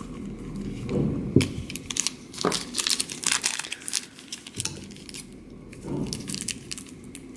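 Crinkling and crackling of a small blind-bag packet being handled and cut open with scissors.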